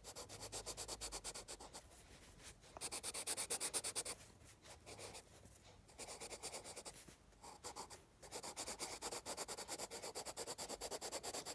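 Rapid back-and-forth colouring strokes on paper, scratching and rubbing in quick runs broken by a few short pauses, as a pink body area of a drawing is filled in.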